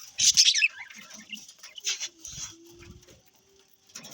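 Budgerigars chirping and chattering in quick, high bursts, loudest in the first second and sparser after, with a faint low steady hum about halfway through.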